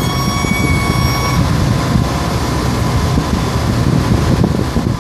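Bucket truck's Caterpillar 3116 turbo diesel running steadily, with a steady high whine for about the first second and a half.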